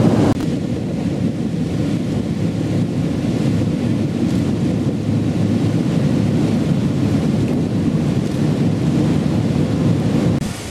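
Steady low rumble of wind on the microphone aboard a passenger boat under way on the lake, with the boat's running noise and passing water beneath.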